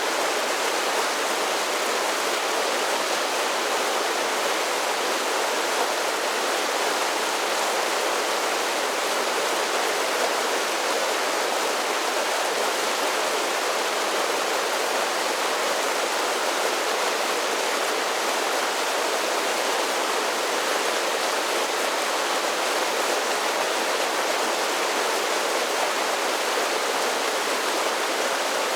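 Mountain creek cascading over a series of small falls, a steady, even rush of water.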